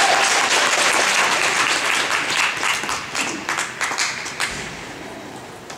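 Audience applauding, dense at first, then thinning to scattered single claps and dying down about four seconds in.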